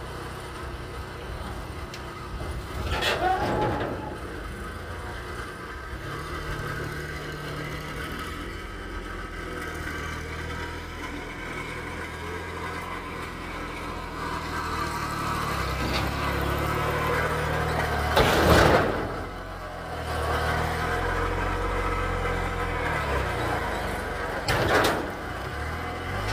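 Mahindra eMax compact tractor's diesel engine running, its note stepping up and down as it is throttled. Three louder, short, noisy swells come about 3, 18 and 25 seconds in.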